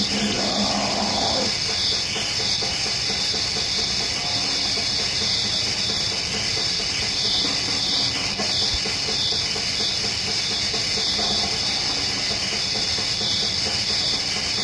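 Lo-fi cassette rehearsal recording of black/death metal: distorted guitars and drums blurred into a dense, hiss-like wall of noise at a steady loudness.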